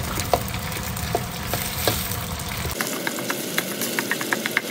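Metal spatula scraping and tapping against a steel wok as a block of corned beef is broken up in sizzling oil with chopped shallots and garlic. About three seconds in, the low rumble underneath stops and quicker, sharper ticks take over.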